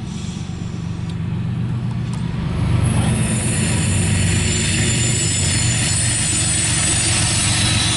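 Diesel locomotive leading a CSX intermodal train, rumbling steadily as it approaches and passes. It grows clearly louder about three seconds in, and a rushing hiss of rolling wheels rises with it.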